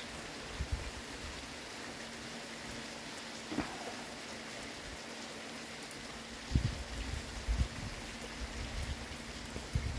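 Steady rain hissing down, with low rumbling that sets in about six and a half seconds in and keeps coming in uneven swells.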